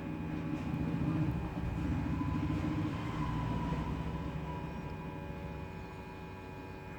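Hot-air rework station blowing on a phone circuit board to desolder the charging jack: a steady hum with a low rush of air that swells about a second in and eases off near the end.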